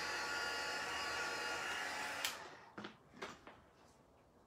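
Handheld craft heat tool blowing hot air with a steady whir and a high whine, switched off about two seconds in, followed by a few light knocks as it is set down.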